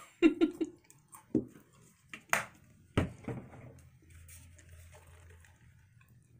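Plastic ketchup squeeze bottle sputtering in a few short squirts. Then come two sharp clicks and a knock about three seconds in.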